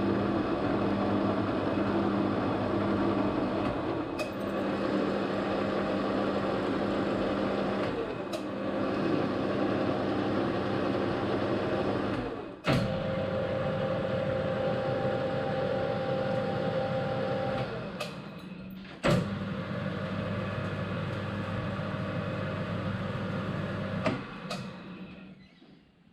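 Metal lathe running while single-point cutting an 18mm thread on a steel hydraulic fitting: a steady mechanical drone broken abruptly several times, dying away near the end.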